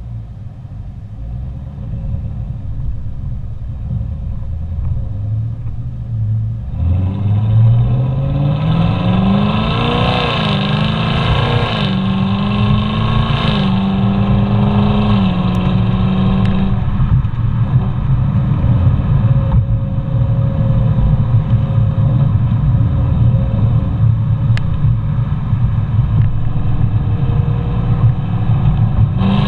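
2021 Camaro SS 1LE's 6.2-litre LT1 V8 through its NPP performance exhaust, driving. About seven seconds in it pulls hard with the revs rising, steps through a few quick gear changes of the 10-speed automatic, then holds steady and eases back to a lighter cruise.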